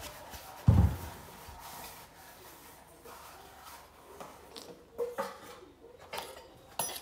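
A dull thump a little under a second in, then a few short, light knocks of small wooden pieces being swung and tapped together.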